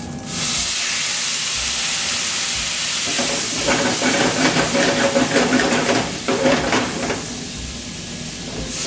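Red wine poured into a hot stainless steel sauté pan, hissing and sizzling in a burst of steam as it deglazes the pan; the hiss starts suddenly and holds steady. From about three seconds in, a utensil scrapes and stirs across the pan bottom.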